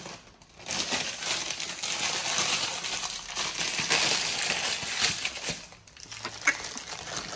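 Baby monkey biting and chewing on a red ice lolly: a dense crackly crunching that starts about a second in and lasts about five seconds, then dies away to a few small clicks.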